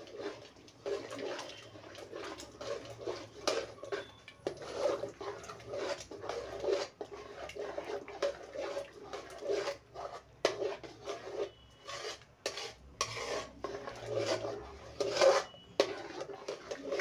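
Spoon stirring thick rice porridge in a metal pot, with repeated scrapes and knocks against the pot's sides, several a second.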